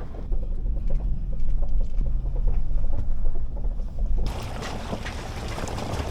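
Pickup truck driving slowly over a rough dirt track: a heavy low rumble with scattered knocks and rattles. About four seconds in the sound changes abruptly to a quieter, even hiss with light crackling.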